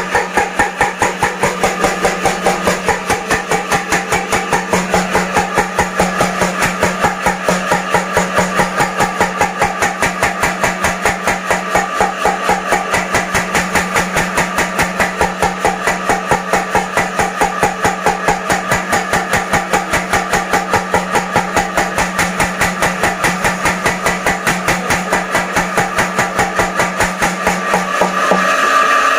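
Blacksmith's power hammer running, striking in a rapid, even rhythm of several blows a second over a steady motor hum. The hum and rhythm give way to a different sound just before the end.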